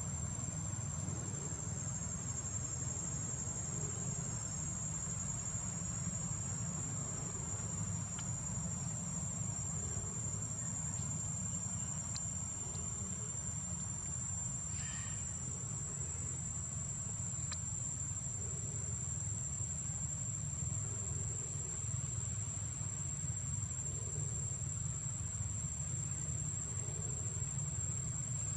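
Steady high-pitched insect chirring, crickets or similar, held on one unbroken tone over a low steady rumble.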